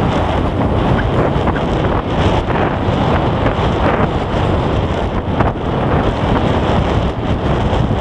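Wind buffeting the microphone: a loud, steady rushing rumble.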